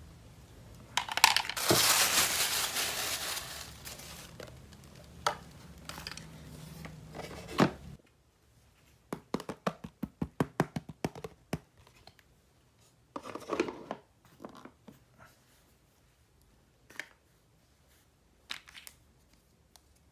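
Plastic toy packaging being torn open and crinkled in the hands, followed by a quick run of sharp clicks and a few more crinkles and taps as the pieces are handled.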